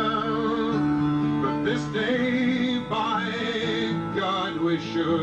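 Live folk song performance: a man singing with acoustic guitar accompaniment, holding long, wavering notes.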